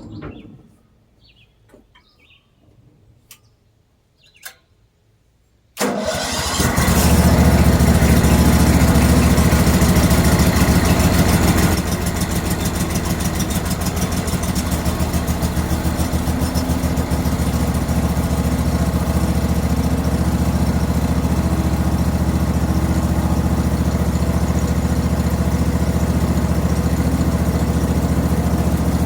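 A few faint clicks, then a small gasoline engine on a portable bandsaw sawmill starts up about six seconds in and runs steadily. It is a little louder for the first several seconds, then settles to an even run.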